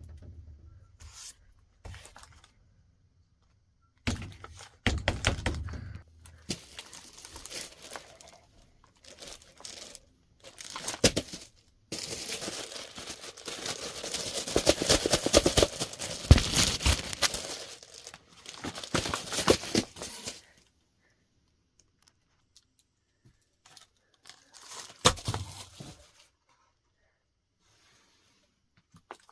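Packaging being handled by hand, crinkling and tearing in several bursts, the longest and loudest lasting about eight seconds in the middle.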